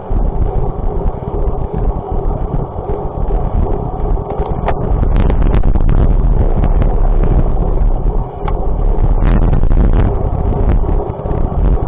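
A vehicle running along a road, heard as a loud low rumble with wind on the microphone and scattered clicks and rattles, growing louder about five seconds in.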